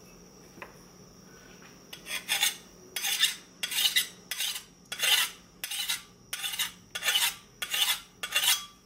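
A file scraped in about a dozen short strokes across a freshly oil-quenched knife blade forged from an old rasp, starting about two seconds in: a file test of the blade's hardness. The file is digging in, which the maker first reads as the steel not hardening and later suspects is only the scale on the surface.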